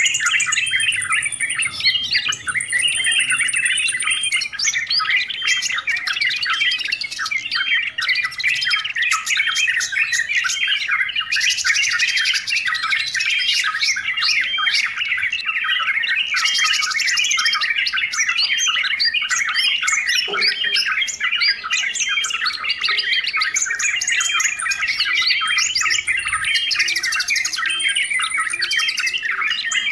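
Yellow-vented bulbuls calling noisily: a dense, unbroken stream of rapid chirps and chatter with no pause.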